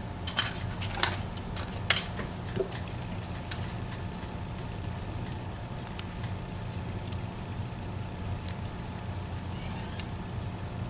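Small metal clicks and taps of a lock pick working sliders and springs out of a disassembled EVVA ICS lock core: a few sharper clicks in the first two seconds, then light scattered ticks, over a steady low hum.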